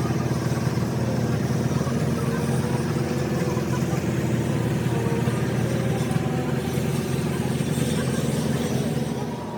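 A Mercedes-Benz truck diesel engine running steadily, turning a little quieter near the end.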